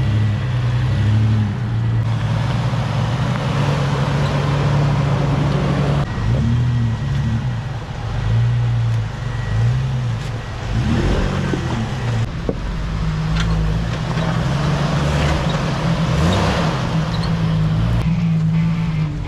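Jeep engines crawling over a rocky dirt trail, the pitch repeatedly rising and falling as the throttle is worked and eased, settling toward a steadier low running tone later on.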